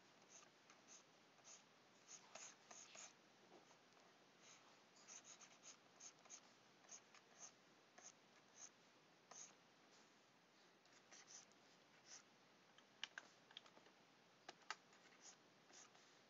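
Faint scratching of a stylus on a graphics tablet in short, irregular strokes, with a few sharper clicks about two-thirds through.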